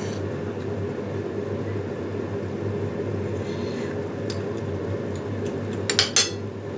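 A pot of vegetable broth boiling on a gas burner: a steady low hum and hiss. About six seconds in, a few quick clinks as a metal spoon is set down on a plate.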